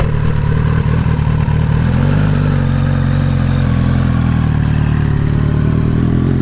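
Inline-four sport motorcycle engine idling steadily. Its engine speed rises slightly about two seconds in and then holds.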